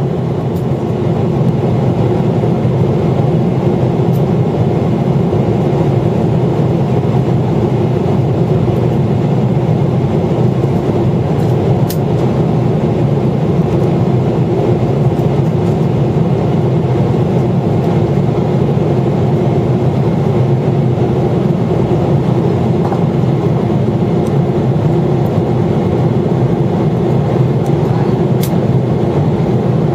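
Steady, loud cabin noise of a Boeing 777-300ER airliner on approach, heard from a window seat beside the wing: the even roar of airflow and the GE90 turbofan engines running.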